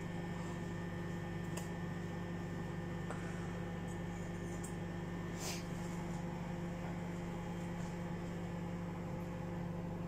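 Microwave oven running at 600 watts, a steady hum.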